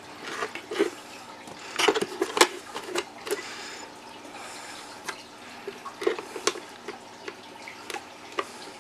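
Hand reaming tool scraping around the edge of a drilled hole in a plastic tackle-box lid, shaving it wider and knocking off burrs so a switch will fit. Irregular scrapes and clicks, busiest around two seconds in and again around six.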